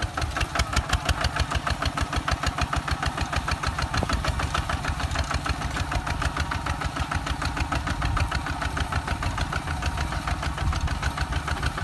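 Kubota ZT 155 DI single-cylinder diesel on a two-wheel walking tractor running steadily with a rapid, even chug while the tractor pulls a disc ridger through the soil.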